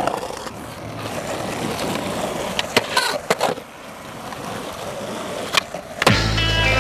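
Skateboard wheels rolling on pavement, with a few sharp clacks of the board: a quick cluster about three seconds in and another near five and a half seconds. Music starts near the end.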